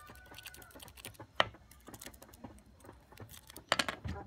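Small clicks and taps of a pen drive's metal USB connector being handled and set down on a wooden table, with one sharp click about a second and a half in and a quick run of clicks near the end.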